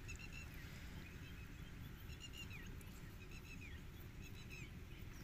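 Faint bird calls: short repeated chirps with a few downward-sliding notes, over a low steady rumble.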